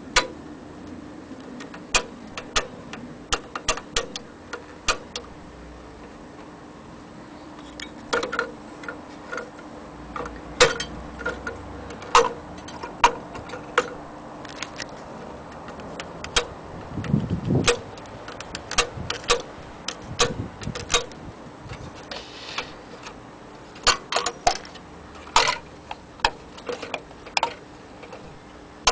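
Irregular clicks and light knocks from a vintage lantern film projector's metal body, knob and lens tube being handled, with a faint steady hum underneath.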